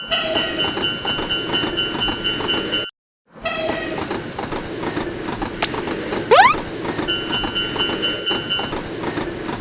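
Japanese railroad crossing bell ringing in rapid repeated dings over a passing train's rumble and wheel clatter. The sound cuts out for a moment about three seconds in, then resumes. Roughly halfway through comes a short, loud rising whistle.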